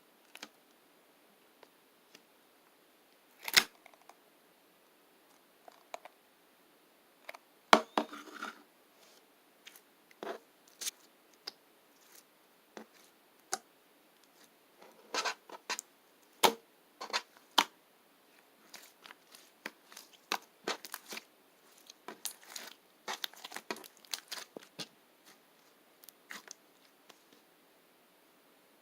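Toy slime being handled and squished by hand, giving irregular sharp pops and crackles, sometimes in quick clusters, with quiet gaps between.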